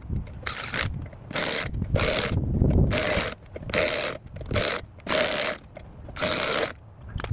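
Corded electric impact wrench run in about eight short bursts, each under a second, working a bolt on the truck's rear brake or wheel.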